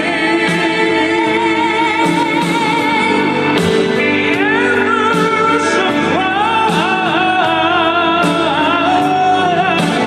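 Live duet singing with band accompaniment: voices holding long notes with vibrato, and about four seconds in a voice slides up into a new sustained note.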